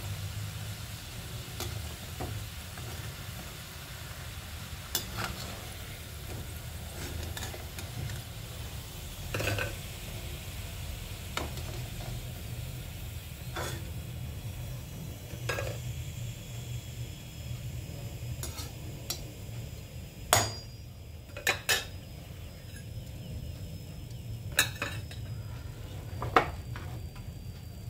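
Hot oil sizzling around dough balls frying in an aluminium kadhai, with a perforated metal skimmer stirring and knocking against the pan in sharp clinks. The sizzle fades in the second half once the balls are lifted out, and the loudest clinks come in a quick cluster about two-thirds of the way through; a steady low hum runs underneath.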